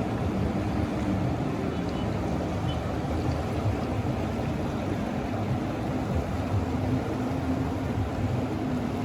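Steady low rushing of the Ganga's flowing water, an even roar with a rumbling low end and no distinct events.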